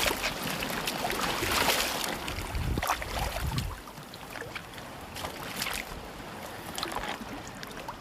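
Shoreline water sloshing and washing around the rocks, with wind on the microphone; louder for the first few seconds, then quieter, with a few small splashes.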